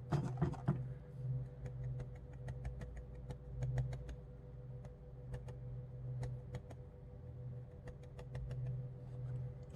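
Light, irregular clicks and ticks of a water brush working against a plastic travel watercolor palette while picking up paint, over a steady low hum.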